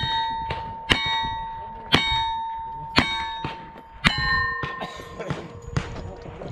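Five gunshots about a second apart, each followed by the ringing of a hit steel target, in a cowboy action shooting stage.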